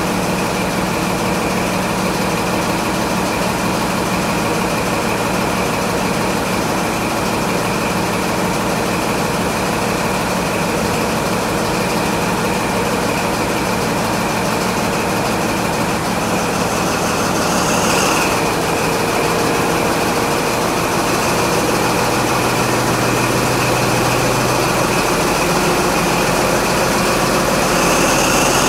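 Class 43 HST power car's diesel engine idling steadily, a high whine held over its low running note. A short burst of noise comes about 18 seconds in, and the engine note grows a little louder over the last few seconds.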